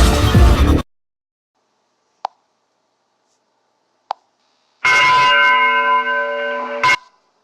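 Ringtone sounds from an annoying-ringtones phone app. A loud electronic dance track cuts off abruptly, two short clicks follow in silence, then a held, even-pitched tone lasts about two seconds and ends in a click.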